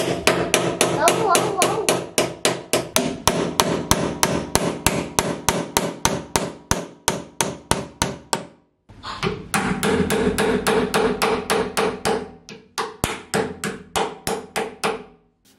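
Hammer striking a steel door hinge in quick, even blows, about four a second, each blow leaving a short metallic ring. The blows come in two runs with a brief pause about eight and a half seconds in. The hinge is being beaten straight because it has bent, so the door will stop rubbing on one side.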